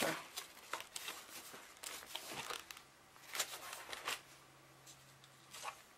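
Paper and card pages rustling and tapping in a few short bursts as a stack of folded art-journal pages is handled and set down on a table.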